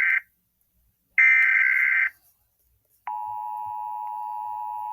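Emergency Alert System SAME header: the end of one burst of warbling data tones, another burst about a second in, then the steady NOAA Weather Radio warning alarm tone, near 1050 Hz, starting about three seconds in. This signals that a warning is being issued.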